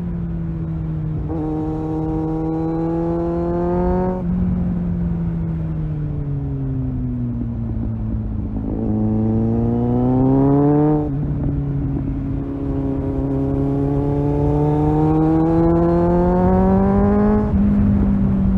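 Kawasaki Z800 inline-four engine, through an aftermarket Tiger exhaust, pulling under throttle while riding. Its pitch climbs and eases off with the throttle, with sharp steps about 4, 11 and 17 seconds in, like gear changes.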